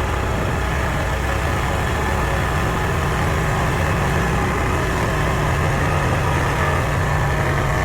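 Kubota mini skid steer's engine running steadily.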